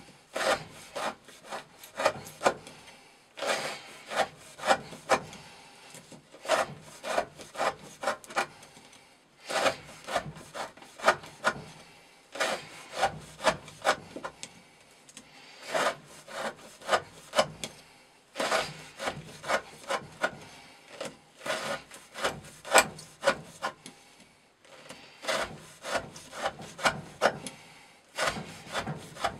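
Chris Reeve Sebenza 21 knife blade shaving curls off the end of a wooden stick: quick scraping cuts, about two to three a second, in runs of a few seconds with short pauses between.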